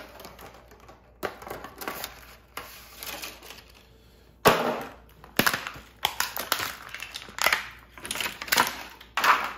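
A box of motorcycle fork sliders being opened by hand: packaging crinkling, tearing and crumpling in irregular bursts, the loudest about four and a half seconds in, with a run of quicker rips and rustles after it.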